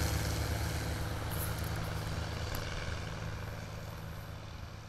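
Light propeller plane's engine droning steadily in flight, fading out gradually.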